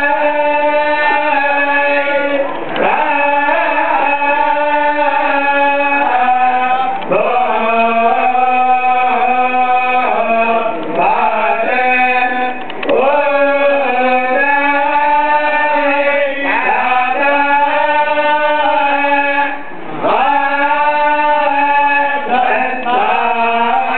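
A group of men's voices chanting in unison, holding steady notes in long phrases with short breaks for breath every few seconds.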